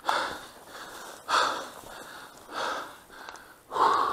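A person breathing hard close to the microphone, one heavy breath about every second and a quarter.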